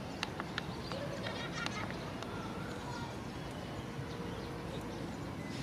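Steady outdoor background noise, with a few short clicks and faint chirps in the first two seconds.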